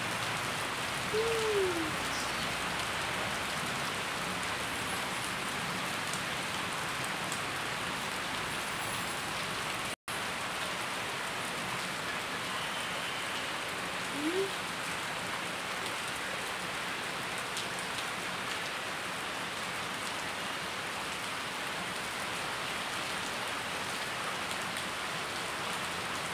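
Steady rain falling on trees, plants and the ground, an even hiss with a momentary break about ten seconds in.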